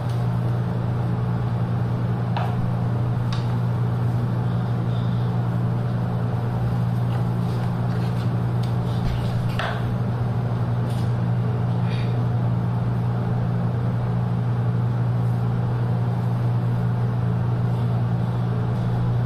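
A steady low machine hum, like an electric motor running, holding the same level throughout, with a few faint light clicks and scrapes on top.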